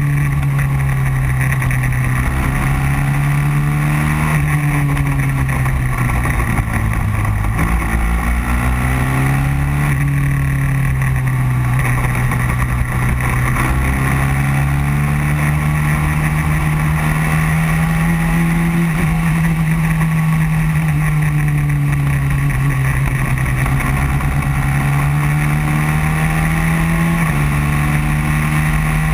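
Racing kart engine at race pace: its pitch drops for a corner about four to seven seconds in, climbs slowly along the following stretch, and jumps up abruptly near the end.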